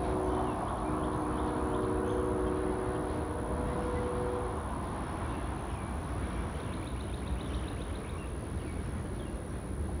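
Freight locomotive air horn sounding a chord of several notes, cutting off about four and a half seconds in, over the low rumble of a train.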